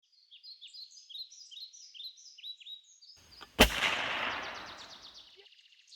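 Birds chirping, then a single sharp shot from a .177 CO2 BB revolver (Umarex Colt Duke) about three and a half seconds in, its report trailing off in a fading hiss.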